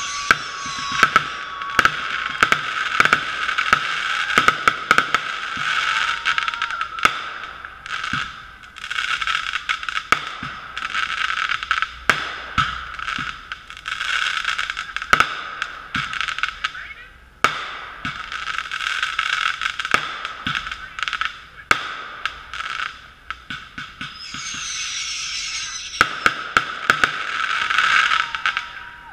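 Aerial fireworks launching and bursting, bangs and cracks coming in quick runs with a couple of brief lulls. Heard through a GoPro's sealed waterproof housing, which makes the sound muffled and thin.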